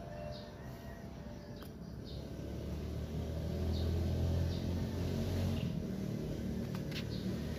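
A low engine rumble that swells louder around the middle, with birds chirping and a few sharp clicks.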